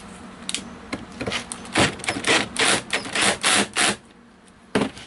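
A wood screw being driven into two pieces of wood with a power drill, in a series of short bursts, with a single click near the end. With only a pilot hole drilled and no shank clearance hole, the threads grip both pieces, so the screw does not pull them together.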